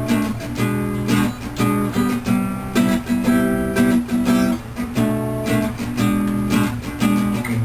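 Acoustic guitar strumming chords in a steady rhythm, as music.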